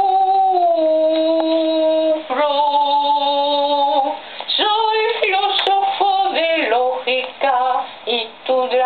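A woman singing without accompaniment: long held notes that step down in pitch, then shorter phrases that glide up and down from about four seconds in.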